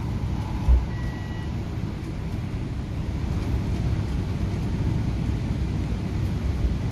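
Cabin noise of an MTR Tung Chung line K-Train running at speed: a steady low rumble of wheels on rail and running gear, with one low thump about a second in.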